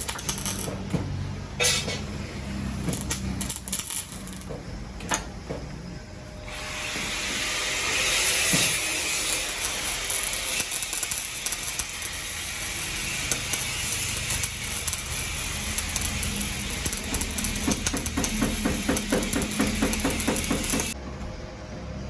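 MIG welding arc: a steady sizzling crackle that starts about six seconds in and stops abruptly near the end, after a few scattered clicks.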